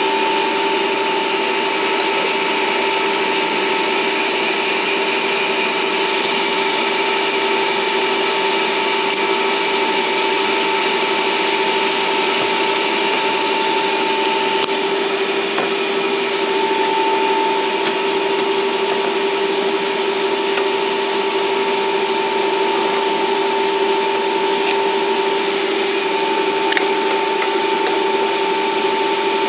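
Stanko 1K62 metal lathe running steadily, its gearbox giving a constant whine of two steady tones over the hum of the machine.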